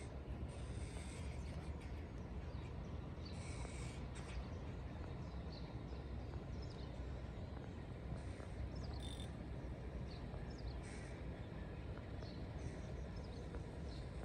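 Outdoor lakeside ambience: birds calling now and then over a steady low background rumble.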